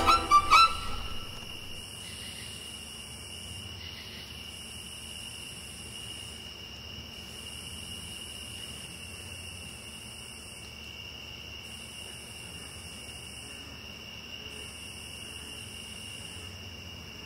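Violin music ends in the first second, leaving a faint steady high-pitched whine with a higher hiss that swells and cuts out every two to three seconds.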